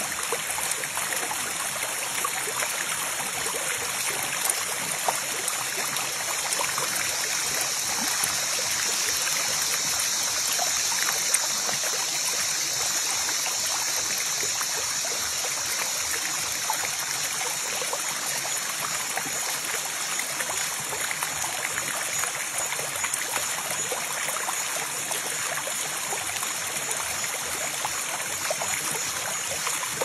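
Shallow forest stream running steadily over rock slabs, a constant rush and trickle, with scattered small splashes and drips as water is stirred in the pool.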